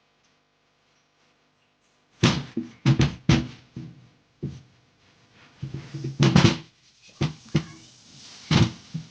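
Irregular hard knocks and thuds, about a dozen, beginning about two seconds in, with a denser cluster in the middle.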